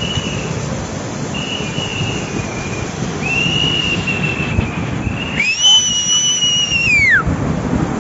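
Flash-flood water rushing down a stream channel as a steady loud noise, with several long, high whistle-like tones over it; the longest and loudest comes a little past halfway and ends in a falling glide.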